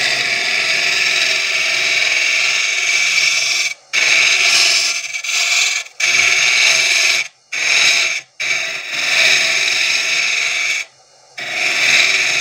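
Wood lathe hollowing end grain: a homemade hook tool with an almost straight, aggressive edge cutting inside the spinning vessel, a steady scraping cut that tears off a lot of wood. It stops briefly about five times as the tool comes off the wood.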